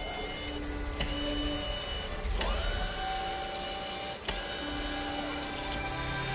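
Mechanical sound effects of small electric motors whirring, holding one steady pitch and then another, broken by about three sharp clicks.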